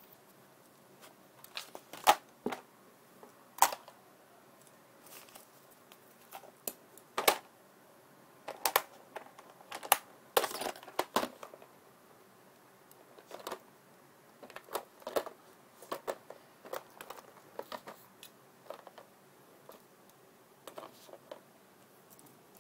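Handling noise from paper and a drawing pen on a desk: irregular sharp clicks and crinkles, loudest about two, three and a half, seven and ten to eleven seconds in, with quiet stretches between.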